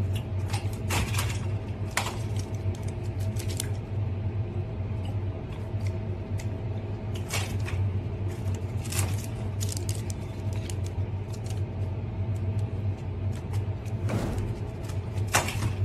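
Scattered clicks and knocks of plastic drink bottles being handled on the shelves of a drinks cooler, over a steady low hum.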